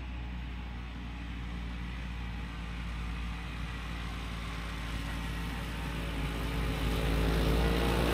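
Vintage Ski-Doo snowmobile's two-stroke engine running at a steady pace as the sled drives toward the listener, growing louder as it approaches.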